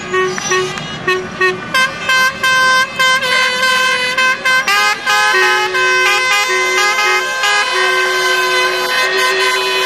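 Many handheld air horns blown by spectators, overlapping at several pitches: short repeated blasts for the first few seconds, then long held notes.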